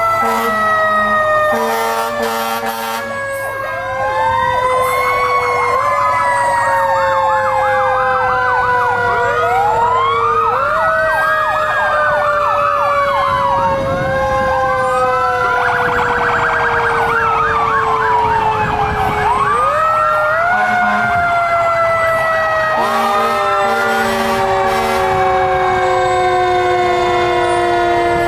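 Several fire truck sirens sounding at once: a long, slowly falling siren tone that steps back up every few seconds, typical of a mechanical siren, layered with rising-and-falling electronic wails and rapid yelps. Short air horn blasts come near the start and again near the end.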